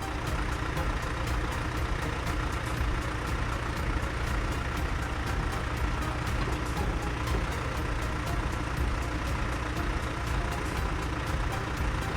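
Road roller engine running steadily, with an even pulsing of about five beats a second.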